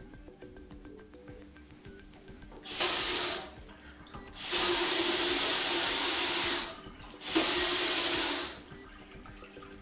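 Kitchen mixer tap running through a newly fitted low-flow aerator into a stainless steel sink, turned on and off three times. There is a short burst about three seconds in, then a run of about two seconds and a last one of about a second. It is being tested after the old aerator, clogged by dirt, had to be replaced.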